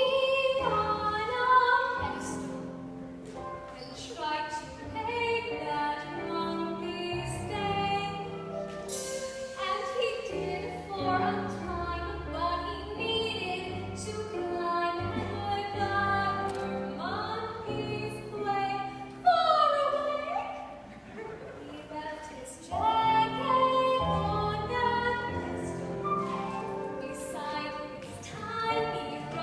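A woman singing a musical-theatre number over instrumental accompaniment, her voice sliding between held notes.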